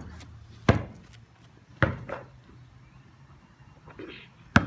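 A basketball thumping: it comes off the rim and backboard and bounces on hard ground, with a sharp thump under a second in, two close together near two seconds, and one more near the end.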